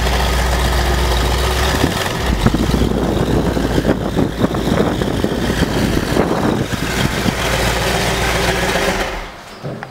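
A 1970 Dodge Challenger's V8, a 440 Six Pack, running with a low exhaust rumble as the car creeps into a garage. It settles at a steady idle, then the engine is switched off about nine seconds in and the sound cuts away.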